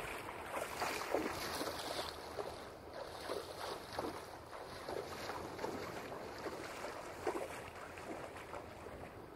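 Water splashing and lapping, with irregular small splashes every half second or so over a steady wash, and some wind on the microphone.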